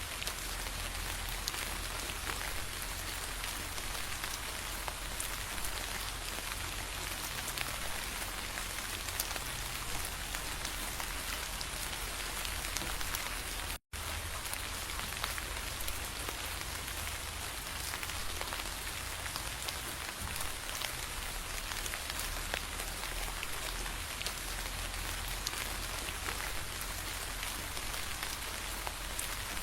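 Steady rain falling, with many individual drops ticking sharply on a surface. The sound cuts out for an instant about halfway through.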